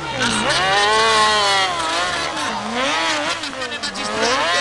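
Piaggio Ape three-wheeler racing on a dirt track, its small engine revving up and falling back again and again as the driver works the throttle through the corners.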